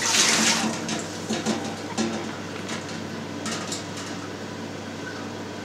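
Whey being scooped with a plastic ladle from a stainless steel cheese vat and poured into a second stainless pan. A splash of poured liquid comes in the first second, followed by scattered knocks of the ladle against the metal pan for a few seconds.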